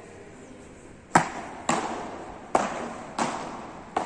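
Beach tennis paddle rackets hitting the ball back and forth in a fast rally: a string of five sharp pocks about half a second to a second apart, the first, the serve, the loudest. Each hit rings briefly in the large indoor hall.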